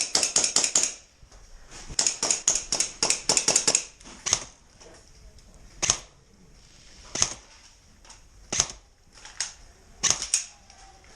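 Airsoft guns firing: two rapid bursts of sharp snapping shots in the first four seconds, then single shots about a second or so apart.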